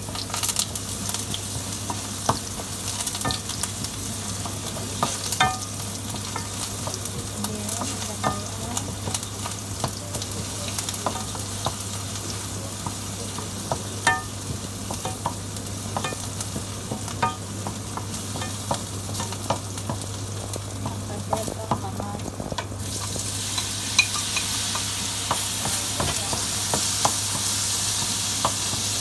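Food frying and sizzling in a pan while it is stirred, the utensil clicking and scraping against the pan many times. About 23 seconds in, the sizzle turns louder and brighter. A steady low hum runs underneath.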